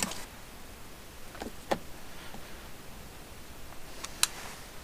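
A few light metal clicks and taps of a screwdriver and small parts against a motorcycle engine crankcase during reassembly: a pair about a second and a half in and another near the end, with a soft rustle of handling.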